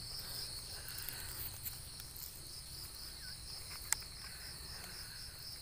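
Insects trilling steadily in a fast, even pulse, with one sharp click a little under four seconds in.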